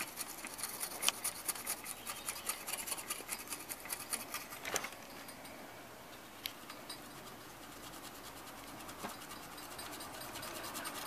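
A brush scrubbing the copper side of a stereo's circuit board in quick scratchy strokes, to clean it and show any broken tracks. The scrubbing is steady for about the first half, then fades, with a few light clicks, before picking up again near the end.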